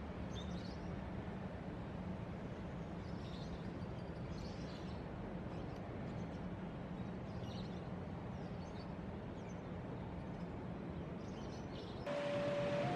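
Steady low background rumble with faint, brief bird chirps every few seconds.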